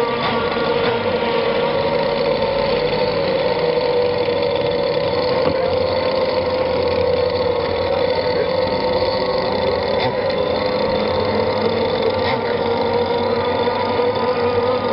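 Engine of a radio-controlled model racing powerboat running flat out, a steady high drone that wavers slightly in pitch.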